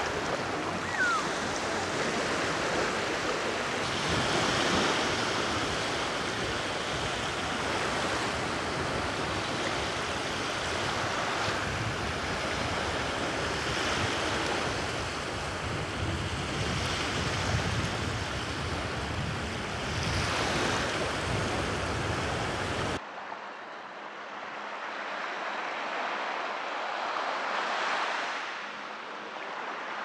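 Small Black Sea waves lapping and washing up onto a sandy shore, the wash swelling and easing every few seconds. About three-quarters of the way through, the sound drops suddenly to a quieter, thinner wash.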